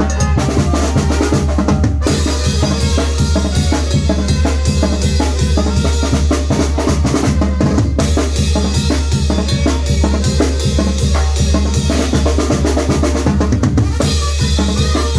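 Loud, drum-heavy dance music with a steady beat and a strong bass line, played by a sonido sound system.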